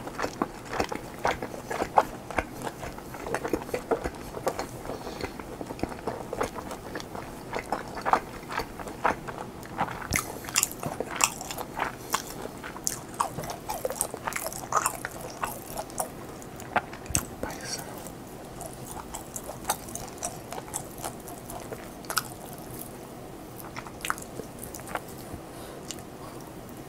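Close-miked chewing and biting of food, a quick run of wet mouth clicks and crunchy bites that thins out in the last third.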